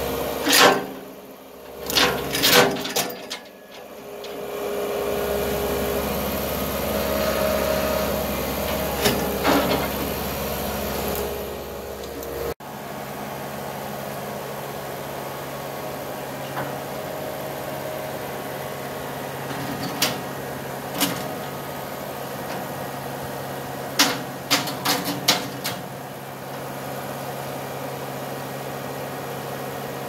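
Thomas 243HD turbocharged skid steer running steadily, with sharp metallic clanks from the lift chain and loader bucket in several quick bunches as it pulls a concrete-footed fence post out of the ground.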